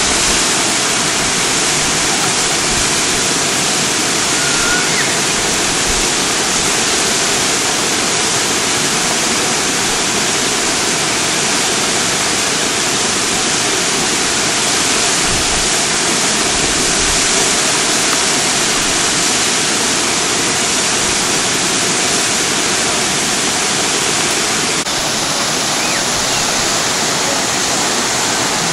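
Waterfall rushing, a loud, steady, unbroken hiss of falling water.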